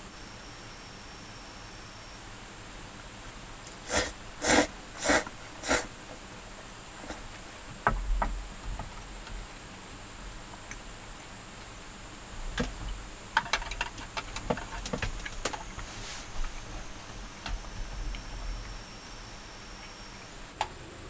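Cold noodles slurped four times in quick succession, loud and noisy, followed by chewing and chopsticks clicking against a plastic lunch box. A low rumble sits under the later clicks.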